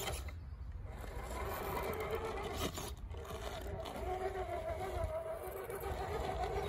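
Vanquish Ultra RC rock crawler's electric motor and geared drivetrain whining steadily as it crawls slowly up a rock step.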